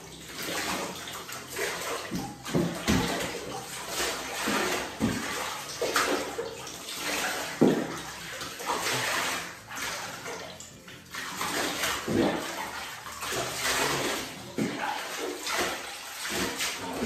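Water being scooped up and poured over a puppy in a bathtub, splashing irregularly and falling back into the tub.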